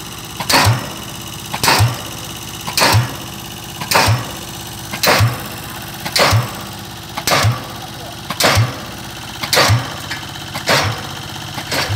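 Pile-driving hammer striking the top of a 25 cm square concrete pile in a steady rhythm, about one blow a second, each a sharp bang with a low thud. A machine engine keeps running between the blows.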